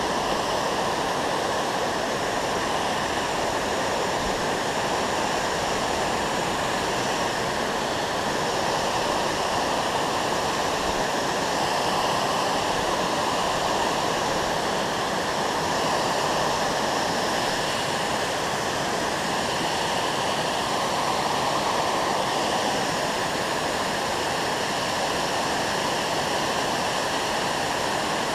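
Water pouring over a dam spillway and rushing through the shallow riffles below it: a steady, unbroken rush.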